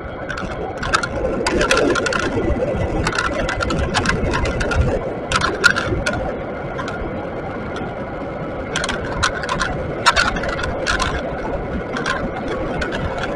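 Riding noise from a moving e-bike with a Bafang BBS mid-drive kit, picked up through an action camera's housing: steady road rumble and wind with frequent sharp rattles and clicks over bumps, and a thin steady whine above it.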